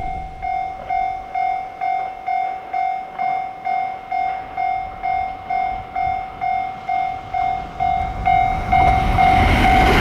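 Level-crossing warning bell ringing in a steady electronic ding-ding, about two rings a second, as a JR West Shirasagi limited-express electric train approaches. In the last second or so the train's rushing wheel and air noise rises and drowns the bell as the train passes close by.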